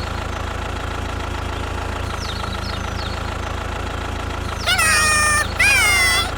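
A steady low engine-like drone with a few faint short chirps, then, about three-quarters of the way in, two loud high-pitched squeaky calls with wavering pitch, and a third starting near the end.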